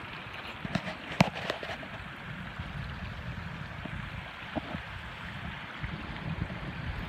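Shallow creek running steadily over a rocky bed, with a few sharp knocks, the loudest about a second in.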